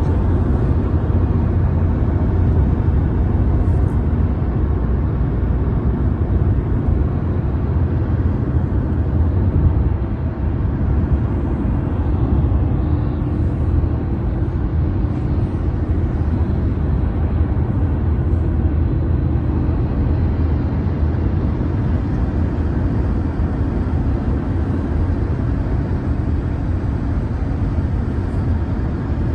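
Steady low rumble of road and engine noise inside a car driving on a highway.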